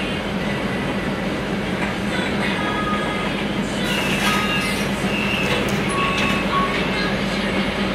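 Cabin noise inside a Scania articulated bus: a steady rumble and low hum of the bus running. About halfway through, short squeaks and rattles join in.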